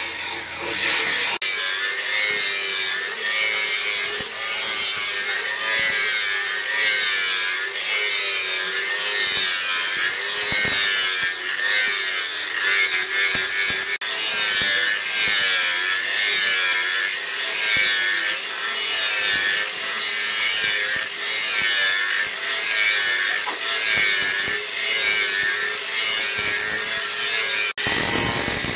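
Electric angle grinder with a sanding disc grinding a steel knife blade: a continuous harsh abrasive rasp over a motor whine that wavers up and down with the pressure. It is preceded by a few sharp hammer blows on a steel anvil in the first second or so.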